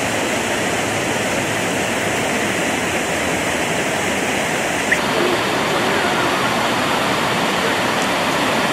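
Steady rushing splash of a large plaza fountain, its ring of water jets falling back into the basin. It gets a little louder about five seconds in.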